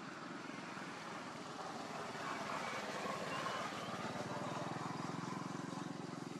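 A motor engine running steadily with a fast, even pulse, growing louder through the second half.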